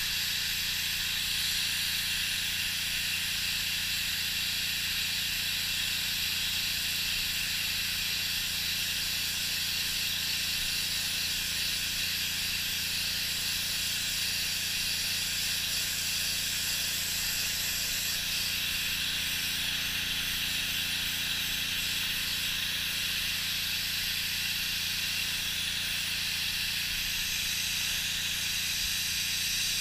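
Pressure-washer jet spraying steadily onto a fiberglass boat deck to blast off old vinyl wrap adhesive: a continuous hiss, with a steady low hum underneath.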